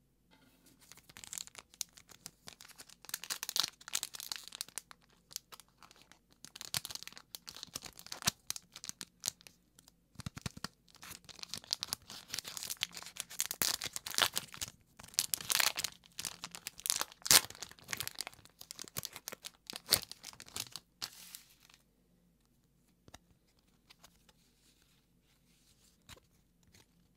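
A foil-lined trading-card booster pack being crinkled and torn open by hand, in irregular bursts of crackling. About three quarters of the way in it goes quiet except for a few faint clicks as the stack of cards is handled.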